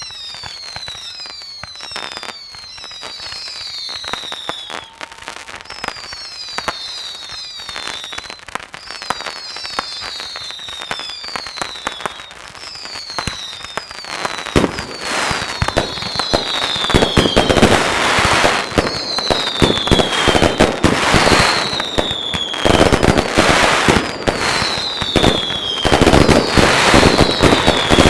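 An aerial fireworks display: a run of whistles, each falling in pitch, about one a second, over rapid crackles and pops. From about halfway through, dense, heavy bangs come in and the barrage grows louder.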